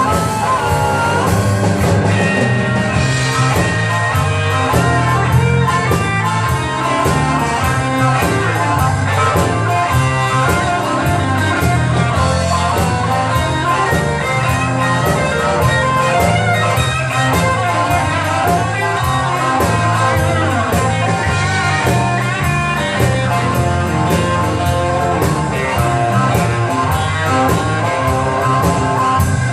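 A blues band playing an instrumental break: guitar over a drum kit, with a steady beat.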